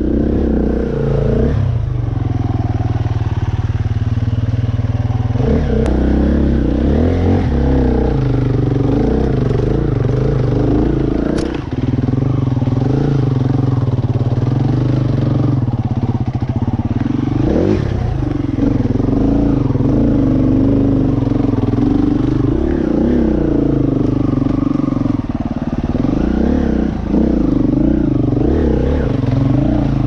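Off-road dirt bike engine running under throttle, its pitch dipping and climbing again several times as the rider works it up a muddy, rutted trail.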